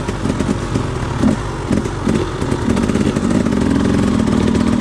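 Dirt bike engine running close by at a low idle, with a few short throttle blips in the middle.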